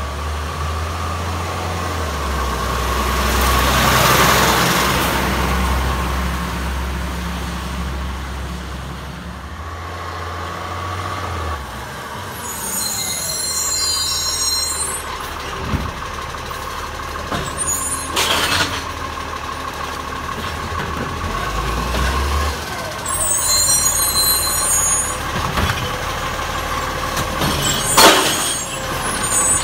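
Iveco Acco side-loader garbage truck's diesel engine running as it drives up the street, rising about four seconds in, then easing off as it slows. Air brakes hiss in two bursts, about twelve and twenty-three seconds in, with sharp knocks near eighteen and twenty-eight seconds.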